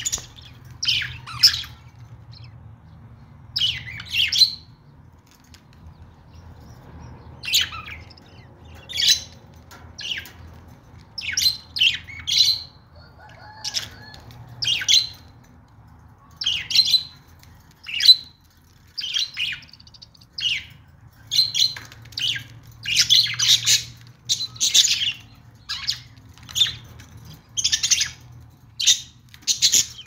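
A flock of budgerigars chirping in short, repeated calls, a burst every second or so, with a brief lull about five to seven seconds in.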